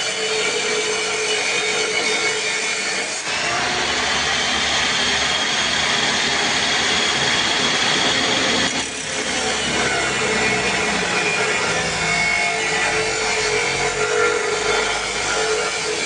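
Power cutting machine running steadily and cutting through material, a continuous grinding-saw noise with a steady whine. The sound shifts abruptly about three seconds in and dips briefly around nine seconds.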